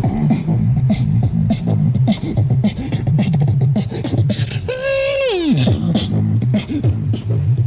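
Hip-hop backing music: a heavy bass beat with quick hi-hat ticks. About five seconds in, a pitched note holds briefly and then slides steeply down in pitch.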